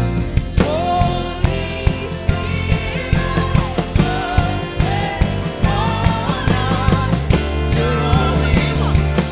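Live worship band playing a rock-style song with drums, bass and keys, with a singing voice carrying the melody.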